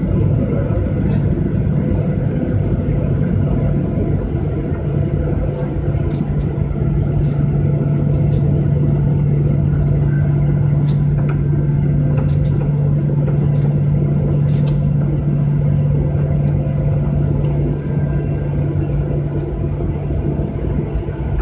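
Jet airliner engines heard from inside the cabin as the plane taxis: a steady low engine hum over a constant rumble from the airframe and wheels. The hum grows stronger about five seconds in and then holds steady.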